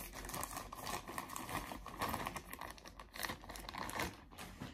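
Packaging crinkling and rustling as a bundle of children's socks is handled, an irregular crackle that goes on with small pauses.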